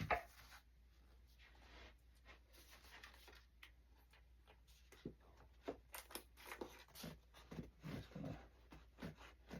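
Faint handling sounds of model airplane parts and wires being fitted by hand: quiet for the first half, then scattered light clicks and rustles.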